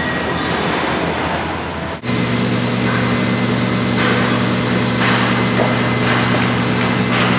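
Construction-site noise: a steady rushing din, then, after a sudden break about two seconds in, an engine running at a steady low drone.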